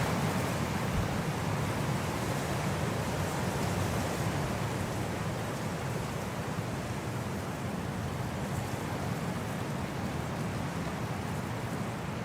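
Steady wind: a low, even rushing with no gusts or clicks, easing a little over the first few seconds and then holding steady.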